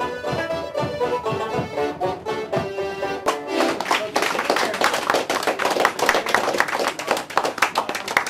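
Traditional Irish dance tune played on button accordion and banjos, ending about three seconds in, followed by a round of applause.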